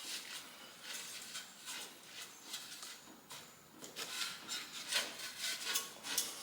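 Irregular scrapes and light knocks of tools and metal being worked at a stuck boiler tube, coming more often in the second half.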